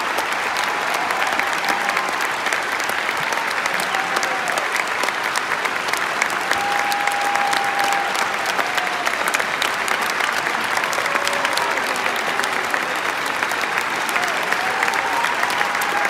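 Large audience applauding steadily, dense clapping with a few cheering calls over it.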